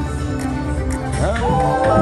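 IGT Wolf Run video slot machine playing its reel-spin music. About a second and a quarter in, a rising tone enters and then holds.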